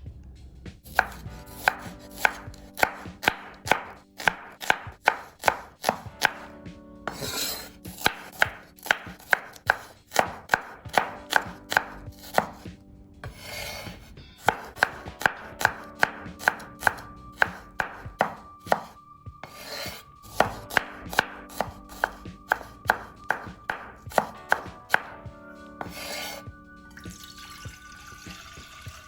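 Knife chopping food on a cutting board: steady runs of sharp knocks at about two to three strokes a second, broken every few seconds by a short swish.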